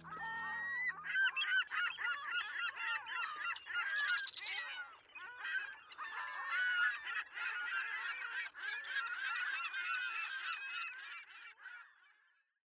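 A flock of geese honking, many calls overlapping, as the last of the music dies away in the first second; the calls fade out at the end.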